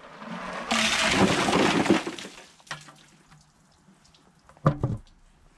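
A bucket of ice and water dumped over an outdoor Wi-Fi access point on a car roof: a splashing, rattling rush for about a second, followed by a few sharp knocks near the end.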